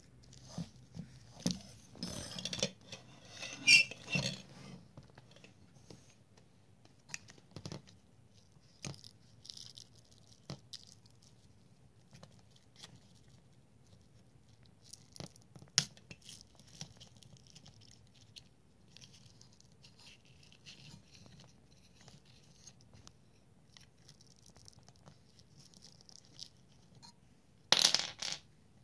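Fingers handling and peeling the rubber cover off a TBS Triumph FPV antenna: scratchy tearing and crackling for a couple of seconds near the start, then scattered small clicks, and a short louder clatter near the end.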